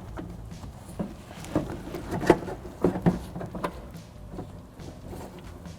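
Irregular clicks and light knocks of a car door latch and its rod being worked into place inside the door shell, with the loudest knock about two seconds in.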